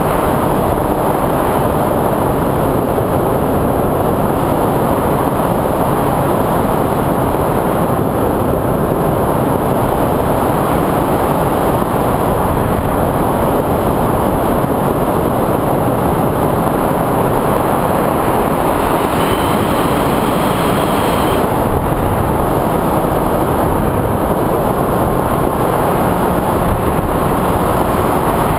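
FPV quadcopter in flight: steady rushing noise of the propellers and wind, with a thin high whine from the motors. About two-thirds of the way through, a second whine briefly joins in.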